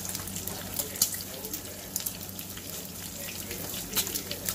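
Bacon and sausage patties sizzling in frying pans on high heat: a steady hiss with scattered crackles and pops of grease.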